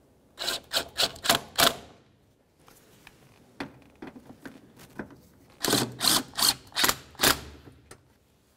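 Hand ratchet snugging up the wiper transmission's mounting bolts: two runs of about five quick ratcheting strokes, a few seconds apart, with a few lighter clicks between.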